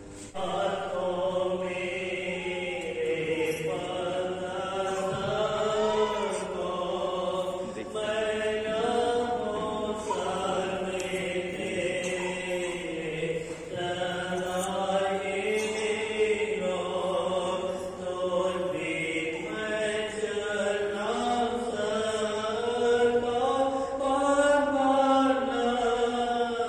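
Music with a sung, chant-like vocal melody in long phrases that rise and fall, starting abruptly just after the opening.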